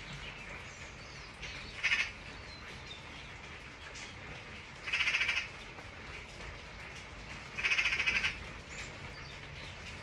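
Steady rain hissing, with a crow giving three harsh caws, about two, five and eight seconds in; the last two are longer than the first.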